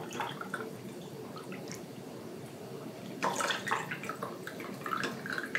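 Chicken broth being ladled through a small sieve and funnel into glass canning jars: liquid trickling and dripping, louder for a moment about three seconds in.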